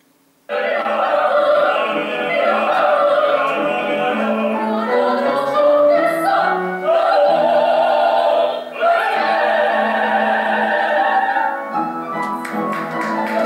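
Several operatic voices singing an operetta ensemble number together, with vibrato. The singing starts suddenly about half a second in, after near silence.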